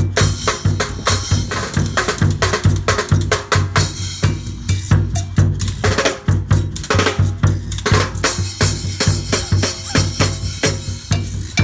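Street band playing a fast, steady groove on drums and cowbell over a low held note.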